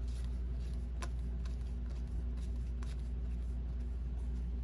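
Paper trading cards being handled and flipped through, giving a few faint clicks and soft rustles over a steady low electrical hum.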